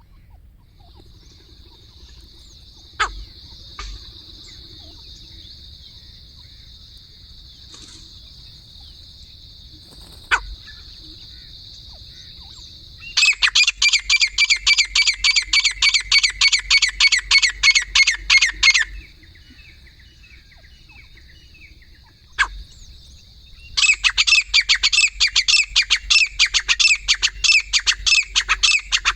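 Birds calling in two loud bouts of rapid, evenly repeated calls, about five a second, over a steady high hiss, with a few sharp ticks in between.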